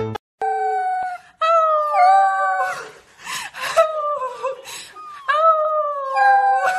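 A dog howling: several long, drawn-out howls, each wavering in pitch, with a breathy, noisier stretch between them about halfway through.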